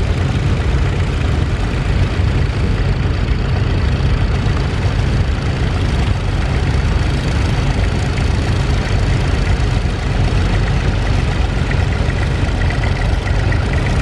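Engine of a grey Ferguson TE20 tractor running steadily as it pulls a plough through the stubble.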